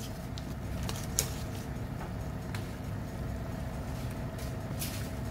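Steady low rumble of lit gas stove burners, with scattered small pops and clicks from tomato sauce simmering in the pot.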